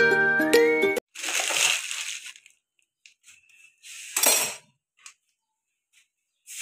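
Background music stops suddenly about a second in. Then come two short rustling, clattering bursts and a few faint clicks: a dinner plate and vegetables being handled on a kitchen counter.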